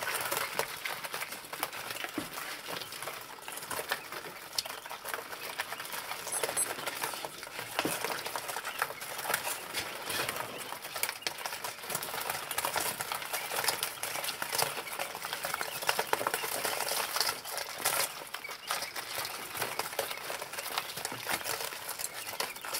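A brood of quail chicks: busy high peeping mixed with quick, dense ticks of beaks and feet pecking and scratching on newspaper and straw, going on steadily.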